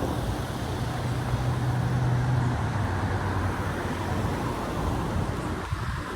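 Steady road-vehicle and traffic noise with a low engine hum that drops to a lower pitch about two and a half seconds in.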